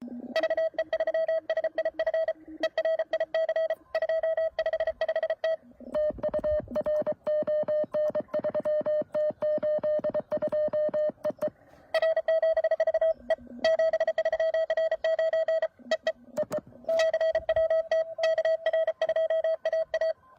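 Morse code (CW) from a ham radio transceiver: a steady tone keyed rapidly on and off in dots and dashes at contest speed, an exchange in the CWops CWT. From about 6 to 11.5 seconds in, a second, slightly lower-pitched keyed tone comes through over a hissy background.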